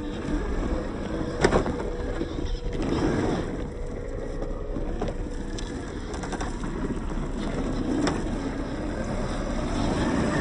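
1/10-scale RocHobby Mashigan RC crawler's electric motor and drivetrain whining steadily as it crawls over loose rocks, with tyres grinding on stone and a few sharp knocks, the loudest about a second and a half in.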